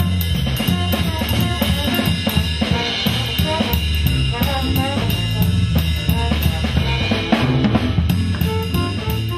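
Outro music with a steady drum-kit beat and bass line.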